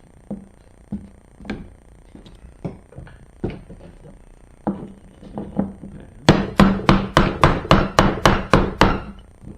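Knocking on the old hinge of a 1990s BMW pannier to drive it off along the lid's rail: scattered single knocks, then about two thirds of the way in a quick run of about eleven sharp strikes, about four a second.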